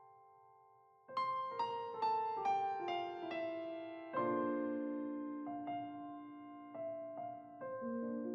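Piano music. After a quiet first second, a run of single notes steps downward, then slower notes ring on and fade.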